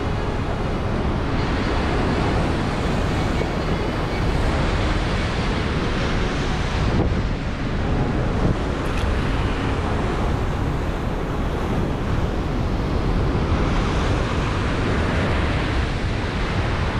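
Ocean surf breaking and washing over shoreline rocks, with wind buffeting the microphone as a steady rumble.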